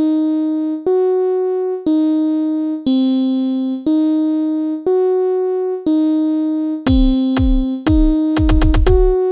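Electronic music: a synthesizer keyboard plays one sustained chord about once a second, each one fading before the next. About seven seconds in, deep bass thumps join, breaking into fast stuttering repeats near the end.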